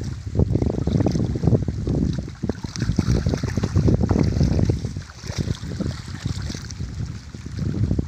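A small child splashing and sloshing through shallow muddy water, in many irregular small splashes, over a low wind rumble on the microphone.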